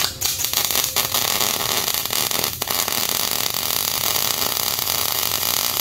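Wire-feed welder arc burning a continuous bead on a steel truss: a steady crackling hiss that starts abruptly and cuts off at the end.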